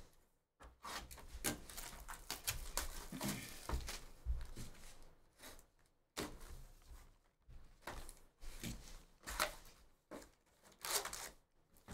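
Wrapping being torn and crinkled in irregular bursts, with cardboard rustling and light knocks, as a hobby box of Upper Deck hockey cards and its foil packs are opened.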